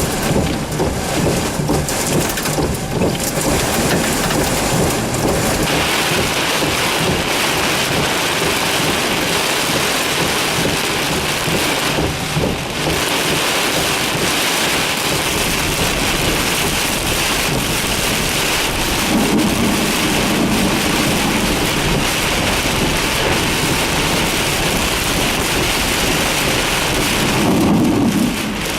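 Torrential thunderstorm rain pouring down steadily in a dense, unbroken hiss.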